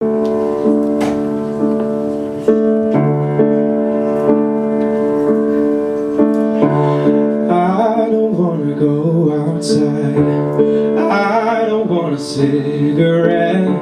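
Acoustic piano playing slow, held chords as a song's introduction. About seven and a half seconds in, a man's singing voice comes in over the piano.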